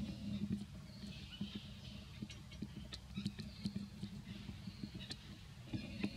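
A baby macaque feeding on watermelon and fruit scraps: many small irregular clicks and taps, with faint high chirping throughout.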